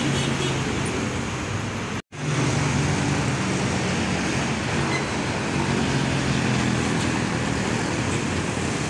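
Street traffic passing close by, with the low, steady drone of heavy diesel truck engines among cars and motorcycles. The sound cuts out for a moment about two seconds in.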